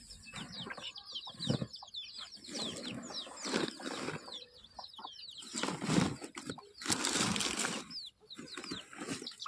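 Chicks cheeping: a stream of many short, high chirps, each falling in pitch. About halfway through comes loud rustling of a jute sack and leaves being handled.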